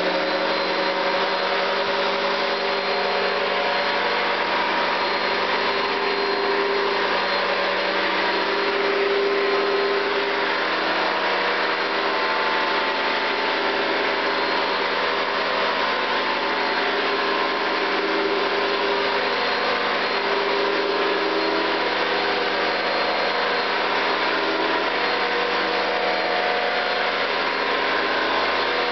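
1970s Hoover Convertible U4127 upright vacuum cleaner running steadily on its high setting with the hose attachment fitted: a steady motor hum and fan whine over a rush of air.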